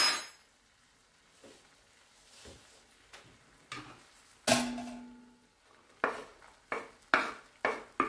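Wooden spatula knocking against a frying pan and cutting board as chopped chili is scraped off the board into the pan: a loud clatter with a brief ring about halfway, then a run of sharp knocks about two a second near the end.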